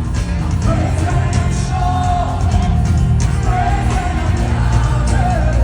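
Live worship music played loud through a PA, with a singer holding long wavering notes over a steady heavy bass.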